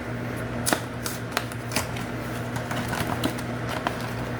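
Yu-Gi-Oh card-pack packaging being handled: irregular sharp crinkles and clicks of plastic and foil, over a steady low hum.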